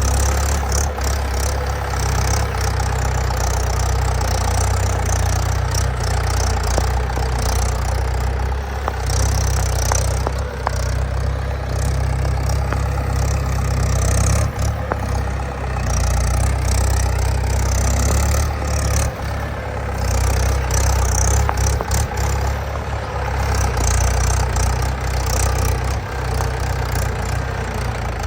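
Heavy diesel engine running steadily at a low speed near idle, its load rising and falling a little, with a few short knocks now and then.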